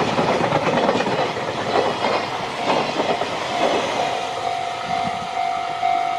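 A JR Freight train's wagons rolling past with a steady clickety-clack of wheels over the rail joints. From about three and a half seconds in, a level-crossing alarm becomes audible over the train, ringing in a steady repeated tone about twice a second.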